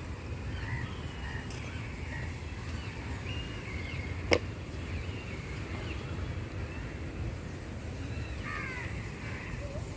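Birds chirping and calling, crows cawing among them, in short scattered calls. A single sharp click about four seconds in stands out above them, over a steady low rumble.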